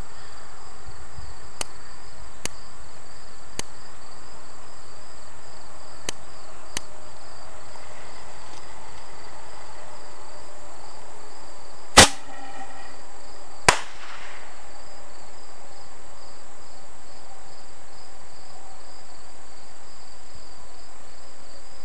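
Consumer firework mortar going off from its tube: two sharp bangs about two seconds apart, the first as the shell is launched. Crickets chirp steadily throughout.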